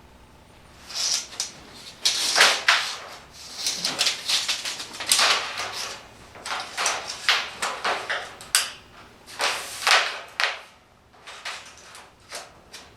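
Sheet metal being measured and marked out: a series of short scraping strokes of a marking tool and tape across the metal sheet, starting about a second in.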